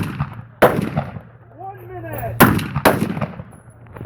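Gunshots at an outdoor range: three separate shots, the first about half a second in and two more close together past the middle, each with a short echoing tail.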